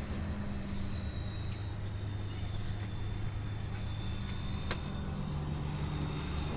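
Vehicle engine running steadily, heard from inside a truck cab, with a thin high whine over it and a few sharp clicks.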